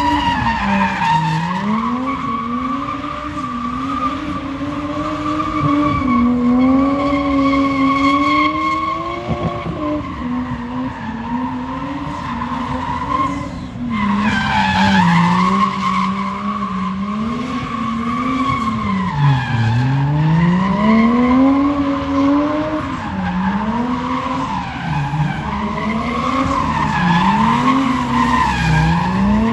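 A long, unbroken creaking squeal whose pitch keeps sliding up and down.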